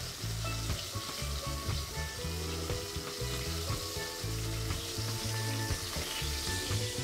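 Flour-dredged cavalli fish slices sizzling steadily as they shallow-fry in hot oil, with background music underneath.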